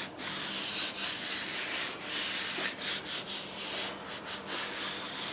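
Palms sliding and rubbing over a Filon fiberglass sheet, pressing it into the wet glue: a series of hissing rubbing strokes, two long ones at first, then shorter, quicker ones.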